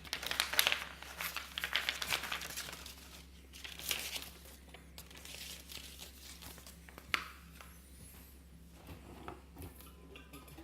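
Packaging crinkling and rustling as parts of a coffee maker are unwrapped and handled, heaviest for the first couple of seconds with another burst about four seconds in. A single sharp click comes about seven seconds in.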